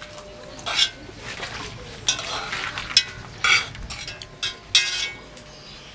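Metal spoons scraping and clinking against a metal cooking pot as rice is scooped out, in a string of short, irregular scrapes and clinks.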